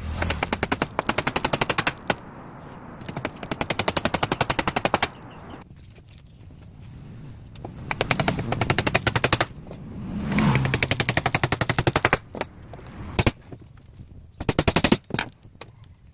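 Power tool on timber working in bursts of rapid hammering strikes, about ten a second. There are five bursts of one to two seconds each, with a single sharp knock between the last two.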